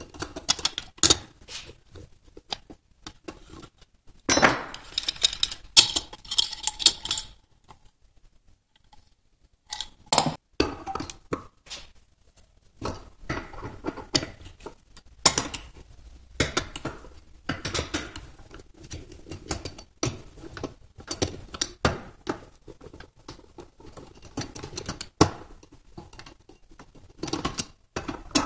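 Metal clinking and clattering as steel hand tools and parts knock against the aluminium valve body of a Hondamatic transmission: irregular sharp clicks and knocks while the mesh oil strainer is taken off and a socket wrench is put to the valve-body bolts. A denser burst of clatter comes a few seconds in, then a short lull, then scattered knocks.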